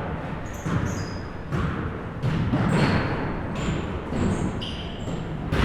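Basketball bouncing on a gym floor: a few sharp knocks and low thuds, with short high squeaks in between.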